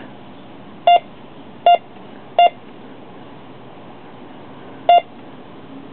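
Bounty Hunter Pioneer 101 metal detector beeping four times as its coil passes over a hose clamp about three inches below it. Three short beeps come about three quarters of a second apart, and a fourth follows after a pause. The beeps signal a metal target found at three inches, about the limit of this detector's depth, since it gave nothing at six inches.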